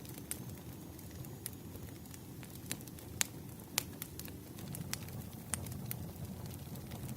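Wood fire crackling: a low steady rush with sharp pops every second or so, the loudest two coming a little after three seconds and just before four seconds in.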